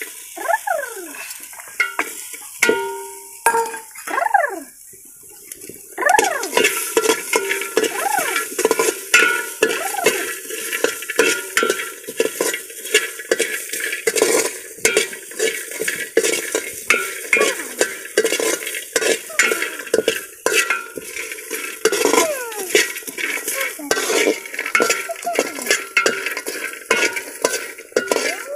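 Metal spatula scraping and clinking against an aluminium pot, stirring chopped coconut that sizzles in the hot pot. The scraping gets steady and busy from about six seconds in.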